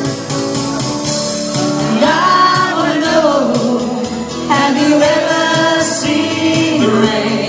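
Live acoustic song: a voice singing over a strummed acoustic guitar, with light percussion keeping a steady beat. A long sung note rises and falls in the middle, and a new line begins just after halfway.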